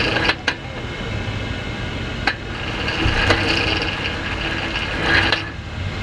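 A Jeep engine idling steadily, with a few sharp clicks and knocks and a short rustle near the end.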